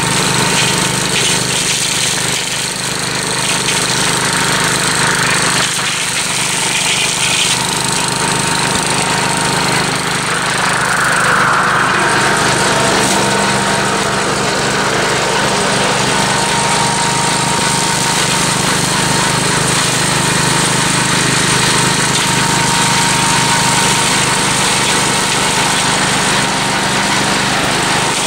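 Gravely Commercial 12 two-wheel walk-behind tractor running steadily under load, its 30-inch brush-hog mower cutting through brush and weeds.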